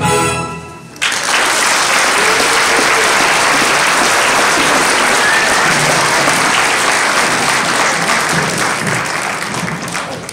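The last moment of a children's choir song dies away, then an audience breaks into applause about a second in. The clapping stays dense and steady, then tapers off near the end.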